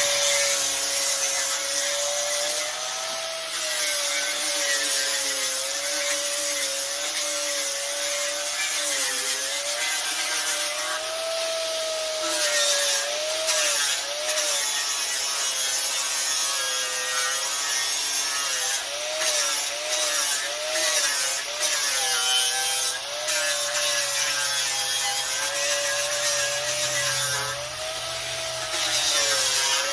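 Disc grinder with a 24-grit sanding disc grinding the inside of an oak stump, running throughout, its motor whine wavering down and back up in pitch as the disc is pressed into the wood and eased off, over a coarse rasping hiss.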